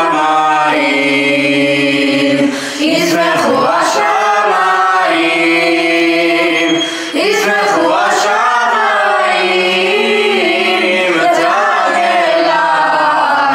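Boys' choir singing in long held phrases, with brief breaks about two and a half and seven seconds in.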